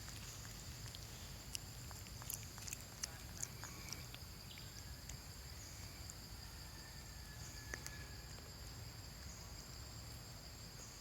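Outdoor ambience with a steady, high-pitched insect drone, scattered small clicks and taps, and a low rumble underneath.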